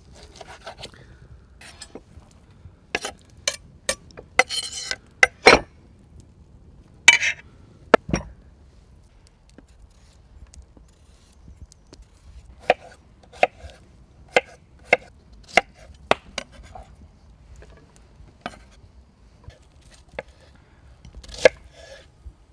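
Kitchen knife chopping on a wooden cutting board: sharp knocks of the blade striking the board, irregular in the first half. From a little past halfway comes a steadier run of knocks about two-thirds of a second apart.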